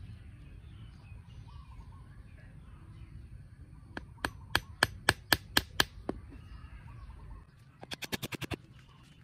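Small metal hammer striking the shell of a coconut: about eight sharp knocks at roughly four a second around the middle, then a quick run of lighter taps near the end.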